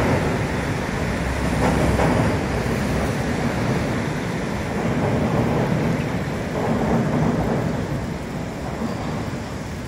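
Chicago "L" train rumbling steadily across a steel truss bridge, a deep, continuous rumble that eases off slightly near the end as the train moves away.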